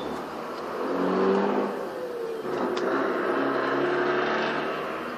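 A motor running, with several steady tones whose pitch shifts and glides slightly. It is loudest about a second in.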